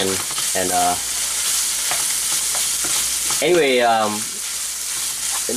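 Ground beef and Italian sausage frying in a skillet with a steady sizzle, stirred with a wooden spatula.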